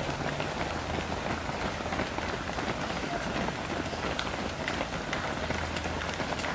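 Footsteps of a large pack of runners on a tarmac road: a dense, continuous patter of many overlapping footfalls.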